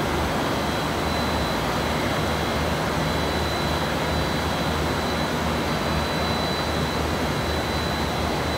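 Three-layer blown film co-extrusion line running: a steady industrial roar of motors and air blowers with a low hum underneath and a thin, steady high whine.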